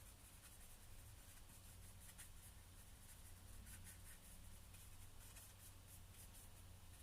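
Faint, irregular scratching of a flat paintbrush dabbing acrylic paint onto canvas, over a low steady hum of room tone.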